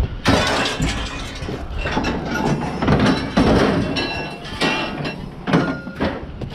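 Scrap metal clanking and clattering as pieces are handled and dropped, a string of sharp knocks with short metallic rings.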